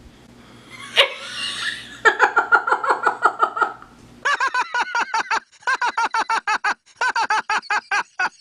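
Hard, uncontrolled laughter in rapid high-pitched pulses, in two long fits, the second running on with brief catches for breath. A sharp knock comes about a second in.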